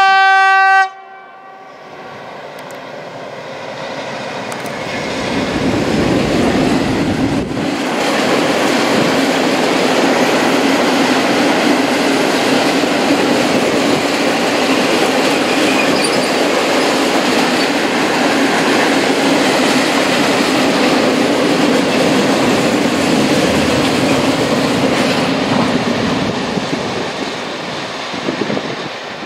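A heavy freight train hauled by two Traxx electric locomotives sounds one short horn blast at the start, then passes close by. The sound builds as the locomotives come past, then the long run of hopper wagons rolls by with a steady hum, easing off near the end.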